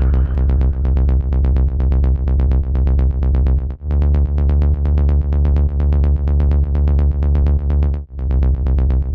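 Electronic instrumental beat with a heavy, steady bass line and a fast, even pulse. It drops out briefly twice.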